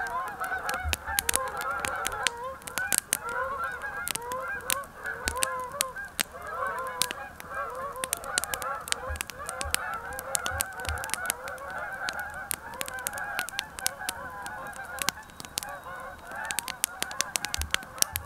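A large flock of geese calling, with many honks overlapping and frequent sharp clicks throughout.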